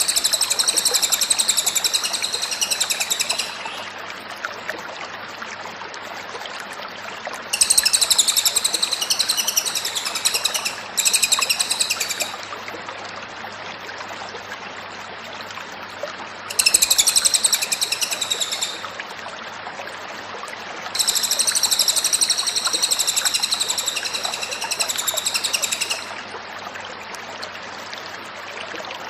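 A cililin songbird singing rapid, high trills in five bouts of one to five seconds each, with pauses between, over a steady background hiss.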